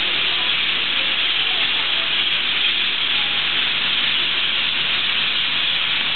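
A huge flock of parrots calling all at once from roost trees at their evening gathering. So many calls overlap that they blend into one loud, steady wash.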